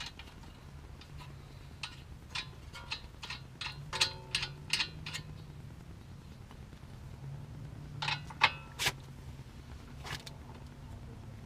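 Irregular metal clinks and clicks of hand tools and bolts as the lower ball joint bolts are started and snugged up on a car's front control arm, a couple of the clinks ringing briefly. A steady low hum runs underneath.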